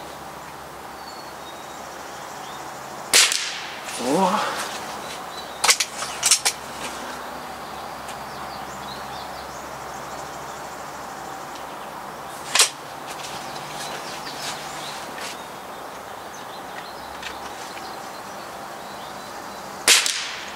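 .22 calibre Crosman Shockwave break-barrel air rifle fired three times, each shot a sudden sharp crack, the first about three seconds in and the others roughly nine and seven seconds later. A couple of lighter clicks come a few seconds after the first shot.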